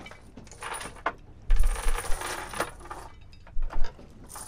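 Boat anchor chain rattling and clinking as it is handled, with a few sharp metallic knocks.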